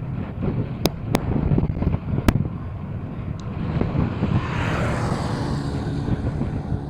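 Wind buffeting the microphone during a bicycle ride, a steady low rumble, with three sharp clicks in the first two and a half seconds. Between about four and six seconds in, a passing vehicle's tyre noise swells and fades.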